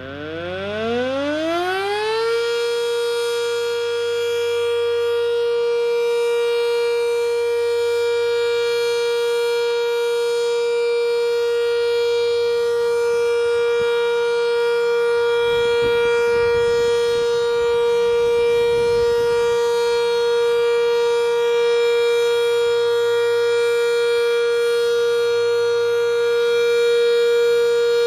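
Sentry 3V8 outdoor warning siren winding up, its pitch rising steeply for about two seconds, then holding one steady tone: the steady Alert signal, sounded as a test. A low rumble comes in briefly about halfway through.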